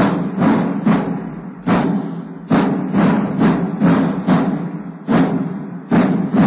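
Military drums of a drum-and-bugle band beating a march cadence for the Mexican flag salute: heavy strokes about twice a second, with a short break now and then.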